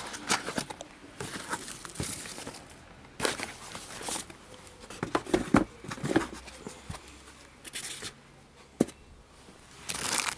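Cardboard box and plastic packaging being handled: scattered rustling and scraping with a few sharp taps, and denser plastic crinkling starting near the end.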